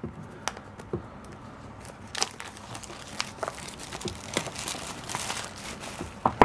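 Plastic shrink wrap crinkling and tearing as it is peeled off a cardboard phone box, with irregular sharp crackles that come thicker from about two seconds in.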